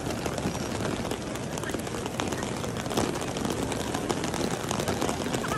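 Steady rainfall on a wet marble courtyard: an even hiss dotted with many small drop patters and splashes.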